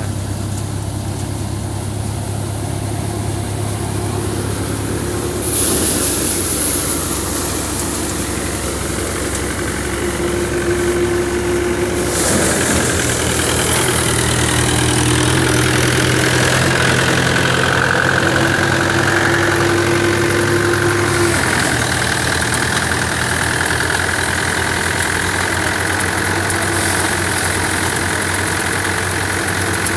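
A Mahindra 475 DI tractor's diesel engine runs steadily while driving a tractor-powered paddy thresher, with the thresher's drum running along under it. The hiss of the machinery gets louder about five seconds in and again about twelve seconds in.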